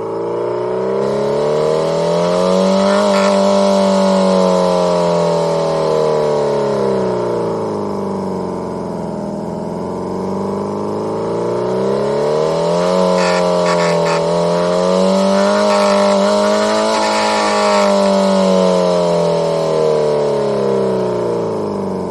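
Homemade optical engine-sound synthesizer, a laser-read spinning disc, imitating a four-cylinder car engine under acceleration. The pitch climbs over the first few seconds, holds, sinks back about halfway through, then climbs and holds again before falling off near the end.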